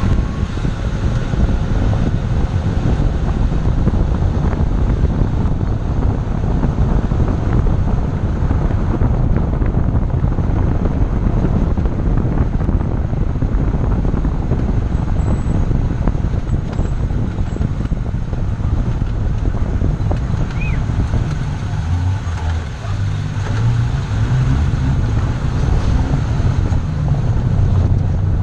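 A car on the move: steady road and wind noise, heaviest in the low rumble, with a low engine hum coming through more plainly in the last few seconds.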